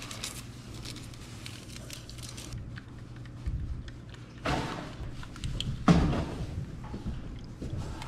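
Small handling sounds of coffee being fixed in a paper cup: creamer cups opened and a stir stick working, with faint clicks and rustles. There are two louder rustling bumps, about four and a half and six seconds in.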